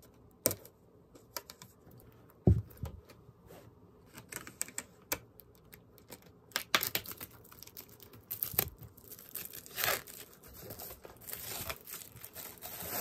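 Plastic shrink wrap crinkling and tearing as it is cut with scissors and peeled off a box, in many short crackles that thicken into a steadier rustle near the end. A single loud thump about two and a half seconds in.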